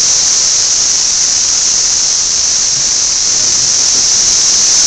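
Chorus of periodical cicadas: a loud, steady, high-pitched drone that does not let up.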